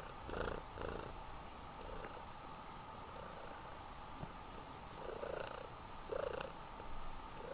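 Mother cat purring close up, rising in uneven swells every second or so.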